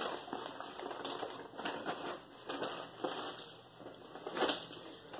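Irregular light tapping, scraping and rustling of things being handled.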